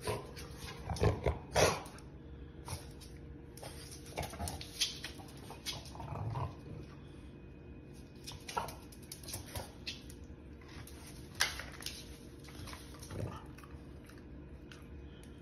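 French bulldog barking and growling in short scattered bursts with a chew stick in its mouth, the two loudest barks close together about a second in, with lighter clicks between the barks.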